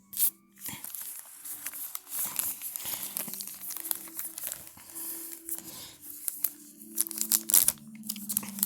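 Plastic trading-card packaging crinkling and tearing as a blaster box and its card packs are opened by hand, with a sharp snap just after the start and irregular crackling after.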